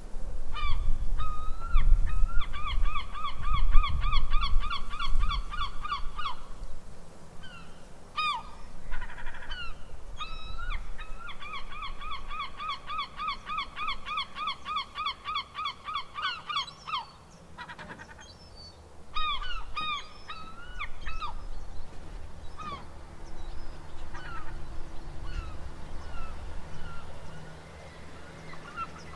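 Seagulls calling: two long runs of rapid repeated yelping calls at about four a second, with scattered single calls between and after. A low rumble sits underneath, strongest in the first few seconds.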